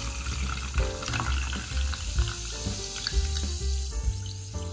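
A fizzy drink poured from a can into a plastic cup, splashing and fizzing, with the pour and hiss dying away near the end. Background music plays throughout.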